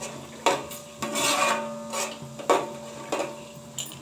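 A ladle scraping against the bottom of a large metal cooking pot as whole spices are stirred in oil, in about four separate strokes, the second one longer.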